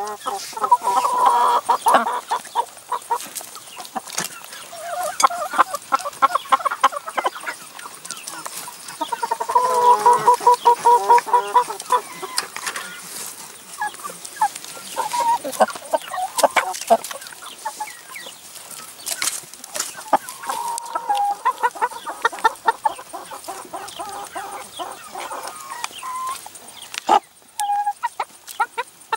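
Hens clucking in short repeated runs of calls while feeding, with many sharp taps as they peck at food in a plastic tray.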